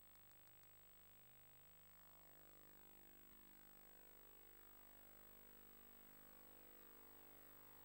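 Near silence: faint steady electrical hum and hiss from VHS tape playback, with a few faint ticks right at the start and faint sweeping whines from about two seconds in.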